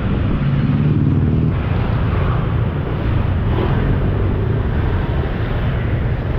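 Steady motor-vehicle engine and road noise on the move, with heavy wind rumble on the microphone.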